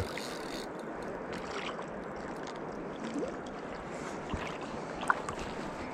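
Steady rush of flowing river water, with a few faint clicks and knocks.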